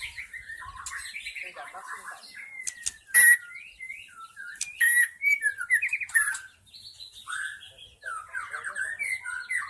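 White-rumped shama singing a fast, varied run of short whistled and chirping notes, some sliding up or down in pitch. A single sharp click about three seconds in is the loudest sound.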